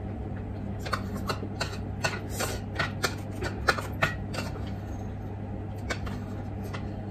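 A metal spoon scraping and clicking against a rice bowl as rice is scooped out, giving a run of irregular sharp clicks and scrapes.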